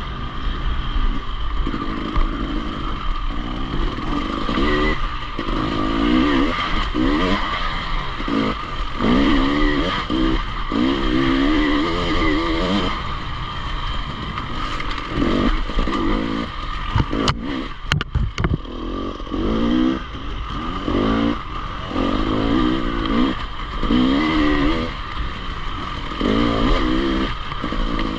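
Enduro motorcycle engine under way, its revs rising and falling every second or two, with a few sharp knocks about two-thirds of the way through.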